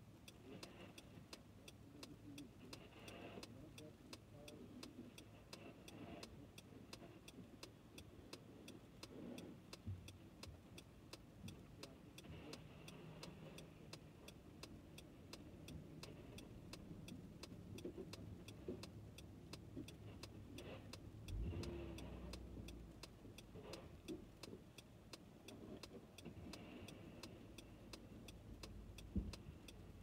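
Faint, low, steady rumble of a car heard from inside the cabin, with a quick, even ticking throughout. There is a dull thump about two-thirds of the way in and another near the end.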